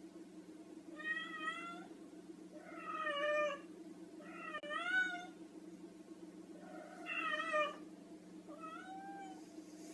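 Female cat in heat meowing and yowling: five drawn-out calls about two seconds apart, each rising and falling in pitch, over a steady low hum.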